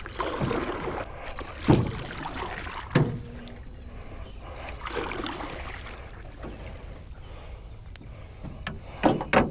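A paddle being stroked through the water beside a small metal jon boat, with swishes of water and dull knocks of the paddle against the hull, about two and three seconds in, the second ringing briefly. Two louder knocks come near the end.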